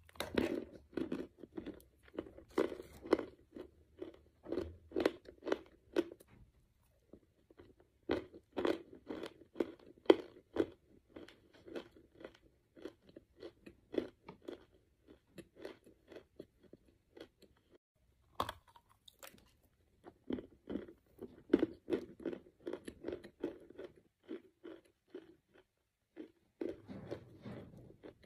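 Crunching and chewing of white calaba, a dry edible clay: crisp bites followed by runs of steady chews, with short lulls about six and eighteen seconds in.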